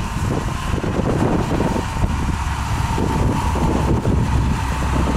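Grain truck's diesel engine running steadily with a low rumble, with wind buffeting the microphone.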